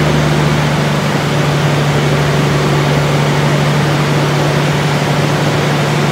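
Semi truck's diesel engine running at a steady speed, a constant loud hum with no change in pitch.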